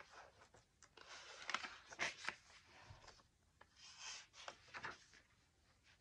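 Magazine-paper pages of a handmade junk journal turned and smoothed by hand: soft rustling with small flaps of paper, in two spells, about a second in and again about four seconds in.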